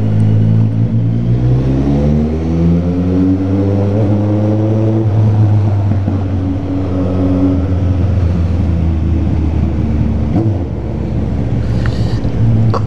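Motorcycle engine and aftermarket exhaust running at low revs while riding slowly in a parking garage. The pitch climbs gently in the first few seconds, holds steady, then eases briefly about ten seconds in.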